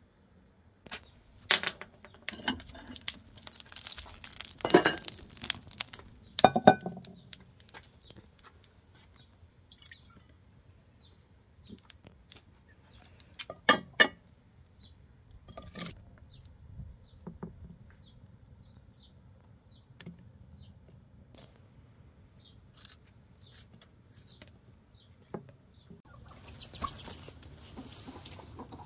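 Kitchen work sounds: scattered clinks and knocks of dishes and utensils. There are a few sharp ones in the first seven seconds and a close pair about fourteen seconds in, with a soft hiss near the end.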